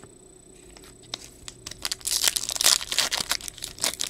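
Foil wrapper of a Bowman baseball card pack being crinkled and torn open by hand. After a quiet first second come a few light crackles, then dense, loud crinkling from about halfway through.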